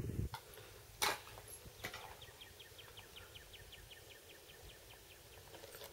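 A bird calling in a run of quick, evenly repeated high notes, about six a second, for around three seconds. A single sharp crack sounds about a second in, with a fainter click just before the calls start.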